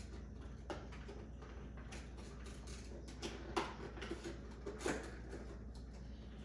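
A few soft clicks and taps of small plastic toy pieces being handled and opened, spaced irregularly over low room hum.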